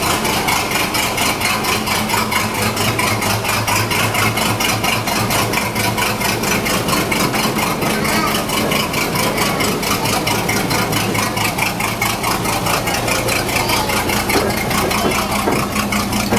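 Small ride-on locomotive's engine running steadily with a fast, even beat as it travels along its narrow track.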